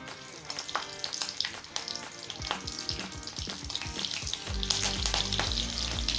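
Mustard seeds and chopped green chilli crackling and sizzling in hot oil in a kadhai, the tempering (tadka) stage. The crackle grows denser and louder in the second half.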